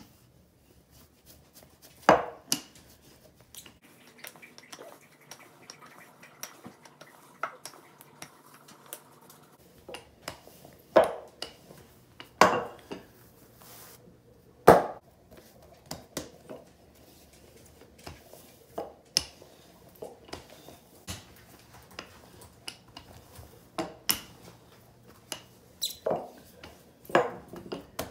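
Wooden rolling pin rolling out bread dough on a stone countertop, with irregular sharp knocks and taps against the counter as the pin is worked, set down and picked up, and the dough is lifted and flipped.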